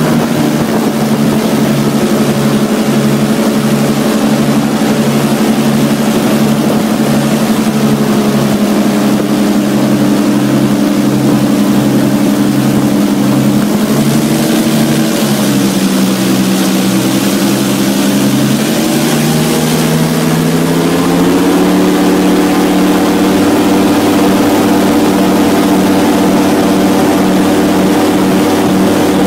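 Airboat engine and air propeller running loud and steady. The pitch dips briefly about halfway through, then climbs to a higher, steady pitch as the engine revs up.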